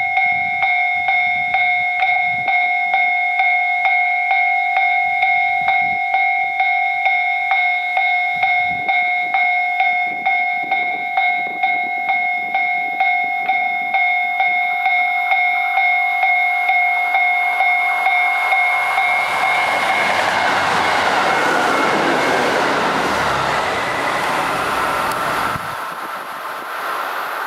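Railway platform train-approach alarm, the Sapporo-bound warning tone, sounding as a repeating electronic tone about twice a second. From about 18 seconds in, a train comes in alongside the platform, its running noise overtakes the alarm and then stops abruptly near the end.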